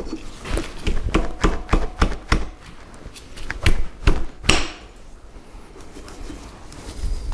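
A quick run of sharp metallic clicks and taps, about a dozen in the first two and a half seconds, then a few more and a short scrape around four and a half seconds in: small steel parts being handled as the handwheel is fitted onto a surface grinder's feed shaft.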